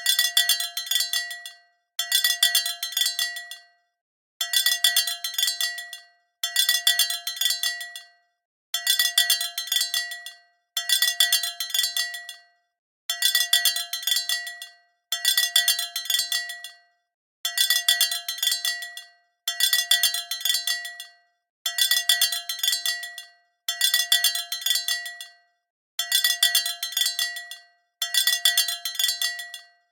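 Cow bell clanking in fourteen repeated bursts, each one to two seconds of several quick metallic strikes that ring and die away, with brief silent gaps between bursts.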